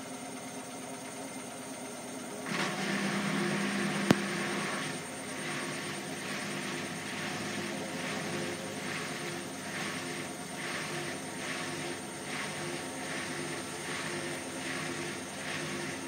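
Hotpoint front-loading washing machine rinsing. About two and a half seconds in, the motor picks up with a louder hum and a single sharp click follows; then the drum turns with water swishing in a steady repeating rhythm over the motor's hum.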